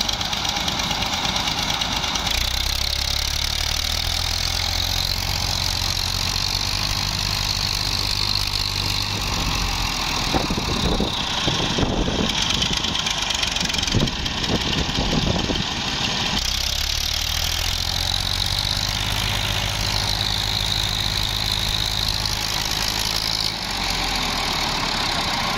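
Massey Ferguson 240 tractor's three-cylinder diesel engine running under load as it pulls another tractor on a chain, the second tractor's engine also running. The steady low engine drone drops away for several seconds midway, then comes back.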